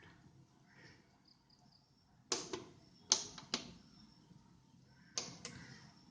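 Several sharp clicks or knocks over quiet room tone: a pair about two seconds in, two more around three seconds in, and another pair near five seconds.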